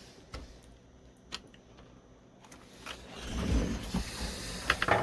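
Plastic clicks and creaking as a laptop keyboard is pried out of an Acer Aspire's case. There are a few separate clicks at first, then louder scraping and rubbing with a quick cluster of sharp snaps near the end.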